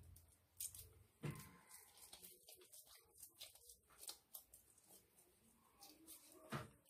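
Near silence, with a few faint soft taps and squelches, three of them more distinct, from oiled dough being squeezed into small balls and set down on a clay plate.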